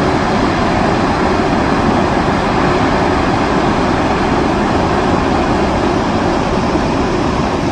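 Dettifoss, a large glacial-river waterfall, with a huge volume of water crashing into its gorge: a loud, steady rush with a deep rumble underneath.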